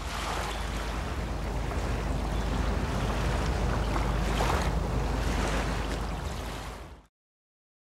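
Waves lapping on open water with wind rumbling on the microphone, steady, then fading out to silence about a second before the end.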